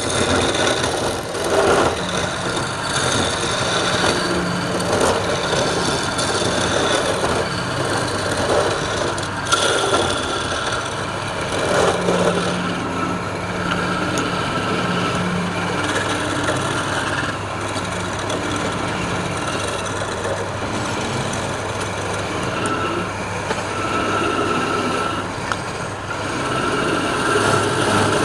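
Wood lathe motor running with a steady hum while a turning tool cuts the spinning wood, the cutting noise rising and falling unevenly.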